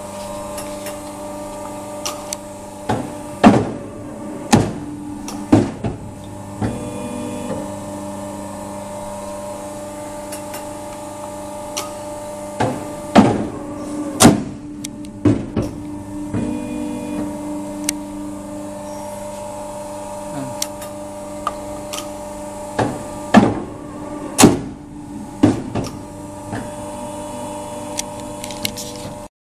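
Hydraulic guillotine paper cutter running, its motor and pump humming steadily. Sharp knocks come in three clusters of about three, roughly ten seconds apart, as the machine works through cutting cycles.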